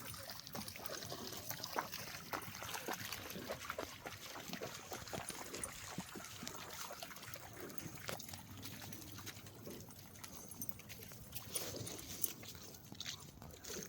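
Faint trickling and splashing of river water, with many small scattered clicks.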